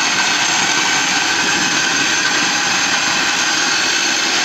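Electric drill driving a grain mill as it grinds Pilsner malt, running at a steady speed with a steady mechanical whine.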